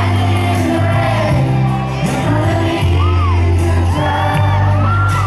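Live pop music: a male lead voice singing through a microphone over a band with a heavy, steady bass line, with high shrieks from the audience a few times.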